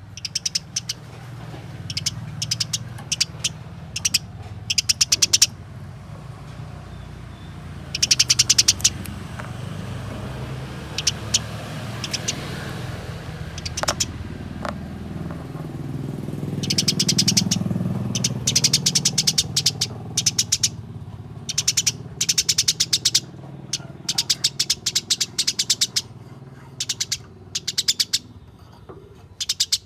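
Eurasian tree sparrows chattering in fighting calls: quick runs of sharp, rapid chirps, each run about a second long, with short pauses between. A steady low hum runs beneath them.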